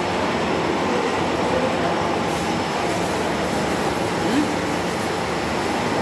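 Hydraulic test rig running steadily while a hydraulic ram is pressure-tested through its hose, a continuous even machine noise.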